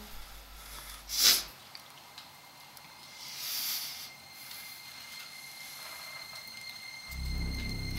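A man's sharp breath out through the nose about a second in, then a softer breath around three and a half seconds. Low music notes come in near the end.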